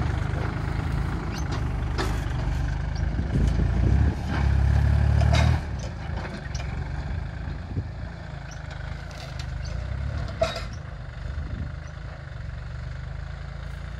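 Kubota L4018's three-cylinder diesel engine running steadily as the tractor pulls a disc plough through dry ground, with a louder stretch about four to five and a half seconds in. Then it grows fainter as the tractor moves away. Occasional sharp knocks sound over the engine.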